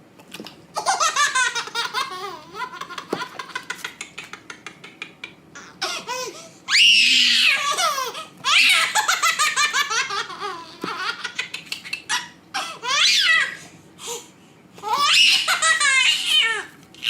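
A baby laughing in repeated fits: a quick run of short giggles, then several longer high-pitched laughs that rise and fall, with short breaths between them.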